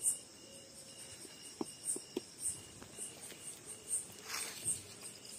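Crickets chirping in a steady, evenly pulsing rhythm, with a few faint clicks in the middle.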